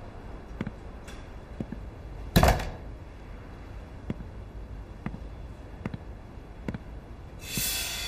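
A door shuts with a single loud thud about two and a half seconds in, amid slow, soft footsteps about once a second. Near the end a bright shimmering swell brings in background music.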